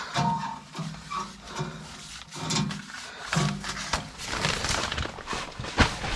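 Heavy breathing and low straining grunts from someone working in a cramped crawlspace, with scuffing and a sharp knock shortly before the end.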